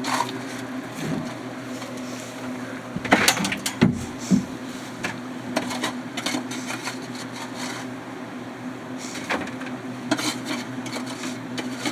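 Scattered knocks and scrapes of hand digging and handling clay chunks over a steady low machine hum, with the loudest knocks clustered about three to four seconds in.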